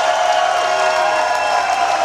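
Concert crowd cheering and applauding at the end of a song, a steady wash of clapping with shouts and whoops through it.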